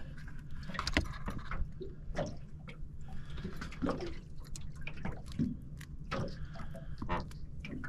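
Water dripping and lapping against a small boat's hull, with irregular small clicks and taps of a wet baitfish and hooks being handled on an esky lid, over a steady low hum.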